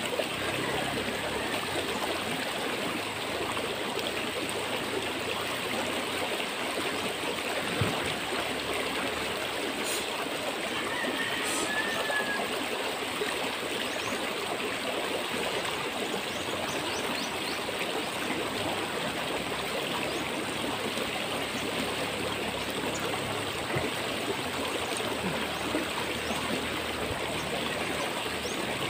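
River water flowing: a steady, unbroken rush of water noise, with an occasional faint knock.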